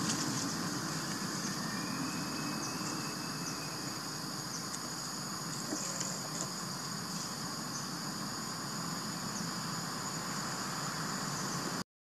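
Steady high-pitched drone of insects in forest trees, with a faint short whistle about two seconds in. The sound cuts out for an instant near the end.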